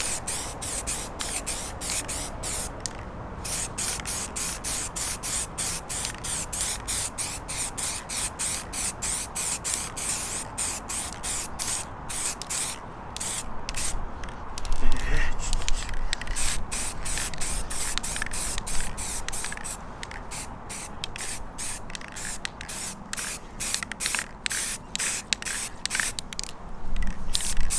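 Aerosol spray can of gloss black paint hissing in quick short bursts, about four a second, with a few brief pauses, as a light first base coat goes on a plastic bumper grille.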